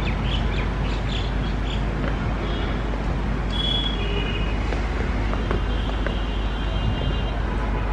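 Steady rumble of a WAG-9 electric locomotive and its passenger coaches approaching on the track, mixed with road traffic noise. Birds chirp in the first couple of seconds.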